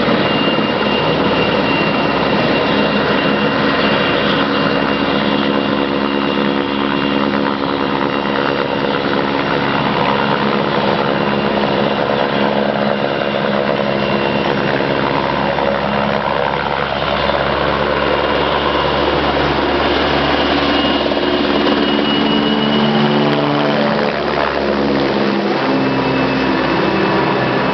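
Helicopter running steadily: loud rotor and engine noise with a high steady whine, its engine tones slowly shifting in pitch in the second half.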